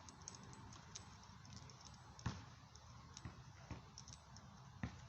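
Quiet room noise with a few faint, sharp clicks and light knocks, the clearest about two seconds in and near the end, as of small metal parts and tools being handled.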